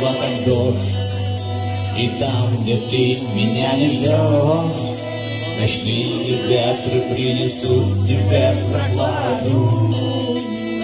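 Live band playing a song: a man singing into the microphone over strummed acoustic guitar and electric bass, with steady bass notes under the vocal line.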